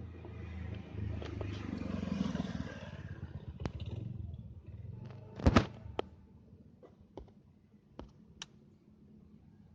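Low rumble of a train fading away over about five seconds, with a loud double knock about five and a half seconds in and a few sharp clicks after it.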